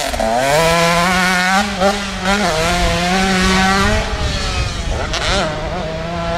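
Motorcycle engine accelerating hard: its pitch climbs, dips briefly at a couple of gear changes and holds high, falls away about four seconds in, then rises again in a short rev about five seconds in.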